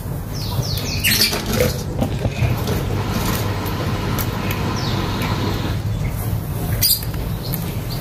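Caged lovebirds chirping: a few short, high, falling chirps early on and again around the middle, with two sharp clicks and a steady low hum underneath.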